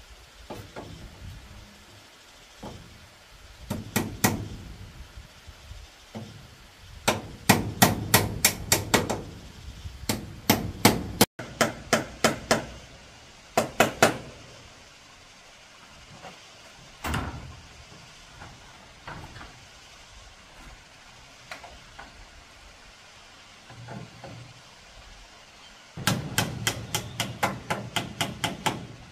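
Hammer striking bamboo framing, in quick runs of sharp blows about four or five a second, broken by pauses and single strikes.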